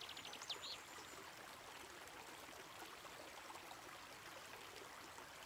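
Small stony brook flowing over rocks, a faint steady rush of water. A songbird's rapid trill of falling notes ends within the first second.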